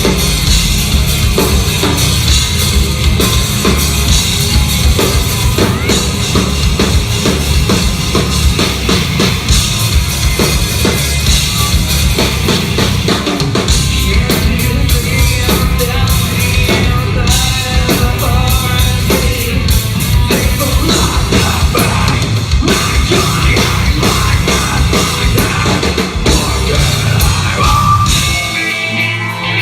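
Live rock band playing loud, with a driving drum kit and heavy instruments and no vocals. Near the end the deep bass drops away.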